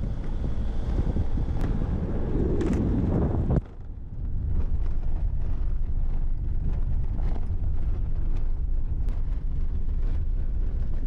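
Camper van driving slowly over a rough dirt track: low rumble of engine and tyres on gravel, with wind buffeting the microphone. About three and a half seconds in the sound cuts and goes on as heard from inside the cab: a steady low engine rumble with scattered clicks and rattles from the bumpy track.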